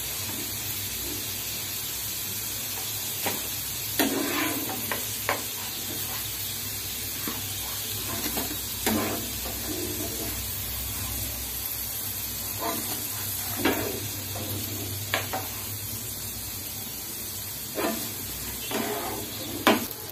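Sweet corn kernels coated in flour, cornflour and chilli powder deep-frying in hot oil, a steady sizzle. A metal slotted spoon stirs them and scrapes and knocks against the pan now and then.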